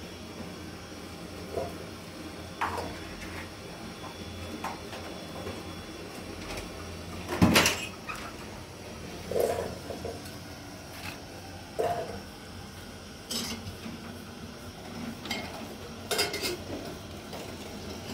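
Scattered light knocks and clinks of a paintbrush and a plastic paint pot against a steel door frame while it is being painted. The loudest knock comes about seven and a half seconds in.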